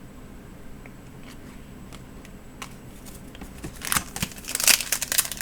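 Trading-card pack wrapper crinkling and tearing as a pack is ripped open, starting about four seconds in with loud crackly bursts after a few faint clicks.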